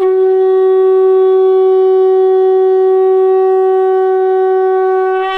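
Conch shell (shankha) blown in one long, steady, loud note, its pitch wavering slightly as the breath runs out at the end.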